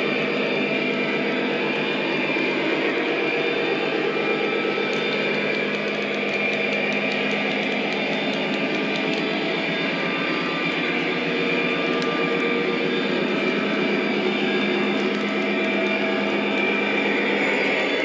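O scale model train rolling steadily along its track, with a continuous running hum and scattered faint clicks from the wheels and rails.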